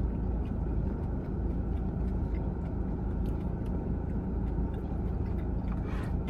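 Faint crunching and chewing of a crispy potato-coated Korean corn dog over a steady low hum.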